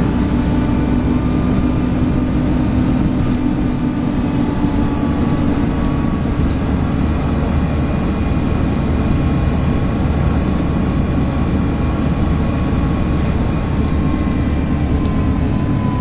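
Alexander Dennis Enviro 300 single-deck bus heard from inside while driving: a steady low engine drone with a constant vacuum-cleaner-like whine, the 'hoovering' sound, on top, its pitch sagging slightly near the end.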